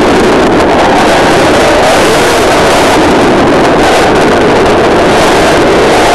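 Loud, steady, distorted rushing noise from the onboard camera's microphone on an RC buggy driving on a wet road, with a faint wavering tone under it.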